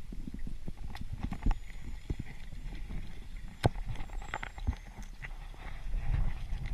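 Irregular clicks and knocks, one sharp one midway, over a low rumble of moving water, as picked up by a camera underwater during a freedive.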